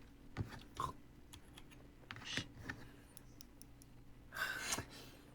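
Scattered light plastic clicks and taps from handling a keyboard and its keycaps, with a brief louder rustle about four and a half seconds in.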